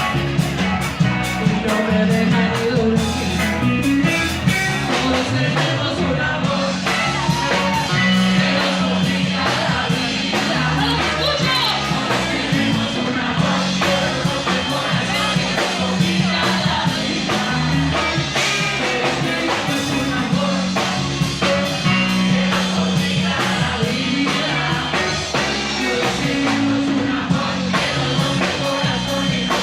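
Rock band playing a song with a lead singer, sung melody over guitar, bass and drums.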